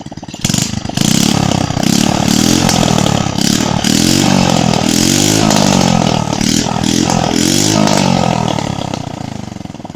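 Honda Supra X 100 cc single-cylinder motorcycle engine running with no exhaust pipe or silencer, revved hard over and over, its pitch rising and falling with each blip, then dropping back toward idle near the end. Very loud and noisy, short of full throttle at about 80–90%.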